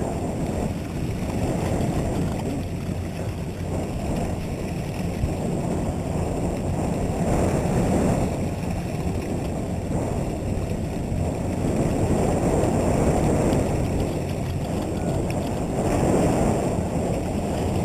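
Wind buffeting the microphone over a steady low hum from the sportfishing boat and water washing along its hull.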